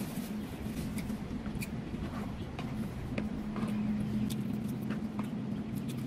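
Close-up chewing of food, with small wet mouth clicks every half second or so, over a steady low hum.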